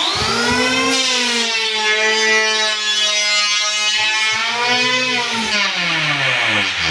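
Electric hand power planer switched on, spinning up to a loud, steady whine as it shaves down raised edges of patched hardwood floorboards. Its pitch sags around five seconds in, then it winds down near the end.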